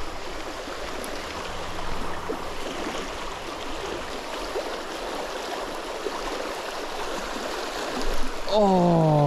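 Shallow creek water rushing steadily over a rocky riffle. Near the end a man's voice cuts in with a drawn-out exclamation that falls in pitch.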